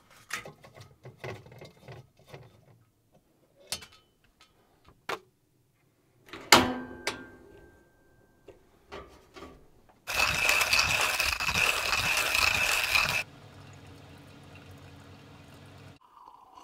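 Vinyl mini-blinds being raised in a camper window, a run of small clicks and slat rattles, then a single sharp metal clank with a short ring. Later a loud hiss with a steady high tone in it lasts about three seconds and stops abruptly, followed by a fainter steady low hum.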